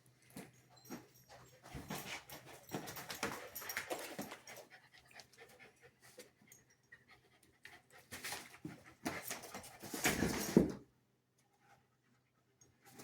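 Husky dog panting in uneven spells, loudest about ten seconds in, then breaking off briefly.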